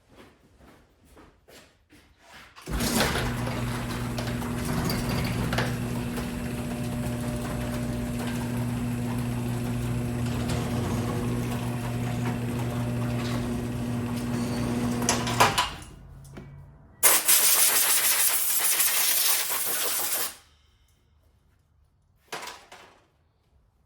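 Electric garage door opener running steadily for about thirteen seconds with an even hum, then stopping. A moment later comes a louder, harsher sound of about three seconds that cuts off abruptly.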